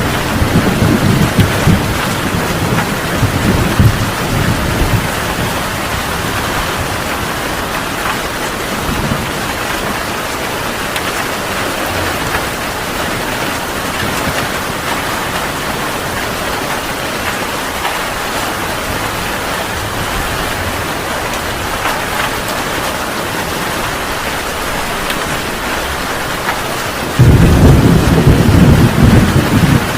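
Heavy rain falling steadily, with thunder rumbling in the first few seconds and a sudden, louder rumble of thunder near the end.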